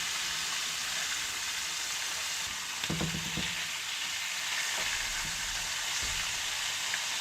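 Floured pearl perch fillets sizzling steadily in hot oil in a frying pan, a continuous even hiss, the fish close to cooked through.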